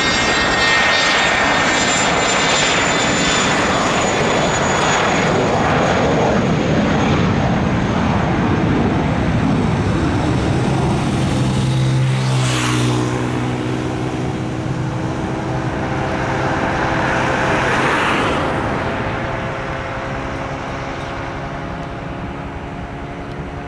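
Twin Pratt & Whitney JT15D turbofans of a Cessna S550 Citation S/II jet running loud, with a high fan whine over the roar in the first few seconds. The sound then fades away over the last several seconds.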